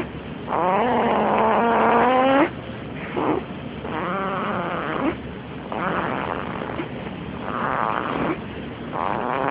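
Snoring: a run of breaths every second or two. The loudest snores carry a wavering, whistly pitched tone, and the quieter breaths come in between.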